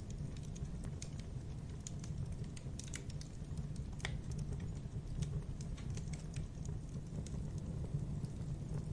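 Burning logs in a fireplace crackling: irregular sharp pops and ticks over a steady low rumble, with one louder pop about four seconds in.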